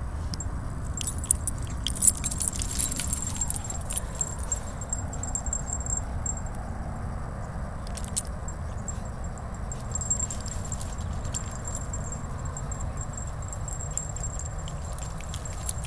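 Light metallic jingling in scattered short clusters, densest in the first few seconds and again around eight and ten seconds in, over a steady low rumble.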